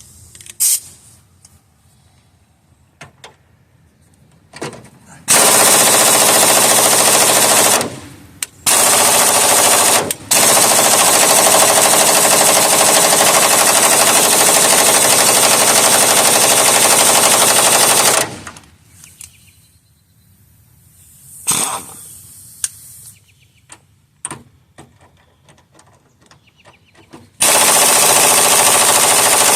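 Pneumatic impact wrench hammering on a stuck fastener in long loud runs: one of about two and a half seconds about five seconds in, then one of nearly ten seconds with a brief break, and another starting near the end. Quiet stretches with small clicks lie between the runs. The fastener does not break loose.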